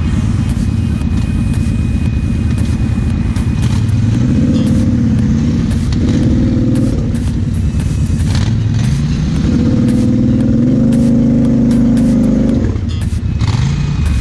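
Kawasaki KFX 700 quad's V-twin engine running under load through mud. Twice the throttle opens for a few seconds and the pitch climbs, about four seconds in and again about halfway through, then it falls back to a lower drone near the end.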